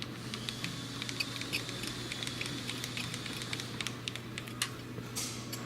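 Fast, irregular light clicking from the Ewag RS12 grinder's tilt adjustment being worked by hand, over a steady low hum from the powered machine.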